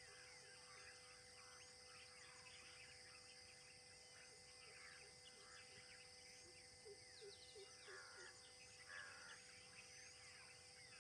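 Faint forest ambience: many birds chirping and calling over a steady high insect drone, with a run of short low calls and some louder chirps in the second half.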